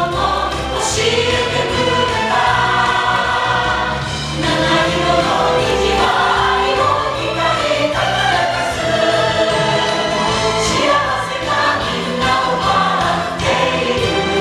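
Music with a choir singing over a steady bass accompaniment.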